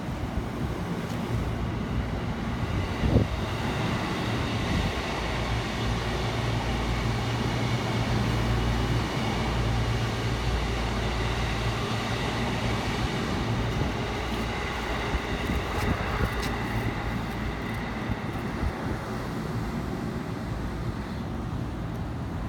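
Electric train running past on the rails: a steady rumble with a low hum that swells and then slowly eases off, with one sharp click about three seconds in.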